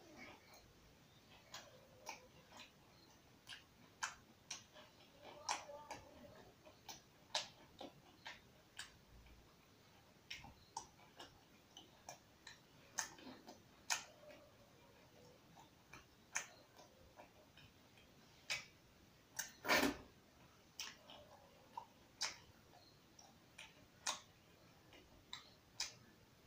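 Close-up eating sounds of a meal of rice and chicken curry eaten by hand: irregular wet mouth clicks and smacks while chewing, about one or two a second. One louder, longer noise comes a little before twenty seconds in.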